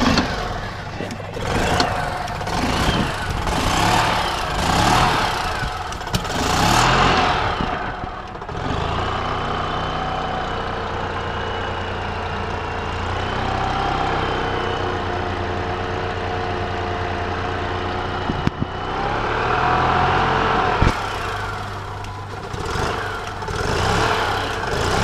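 EZGO golf cart's two-cylinder Subaru engine running without the choke, revved up and down repeatedly. About eight seconds in it settles to a steady idle for about ten seconds, then revs up and down again toward the end.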